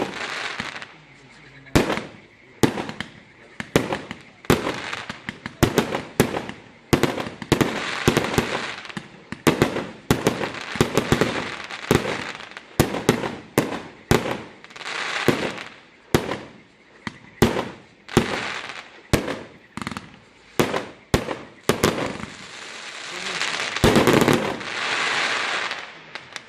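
A 120-shot fireworks cake (a 30 mm-calibre salute battery) firing shot after shot, roughly one sharp bang a second, with crackling between the shots. Near the end it fires a dense, loud volley and then stops.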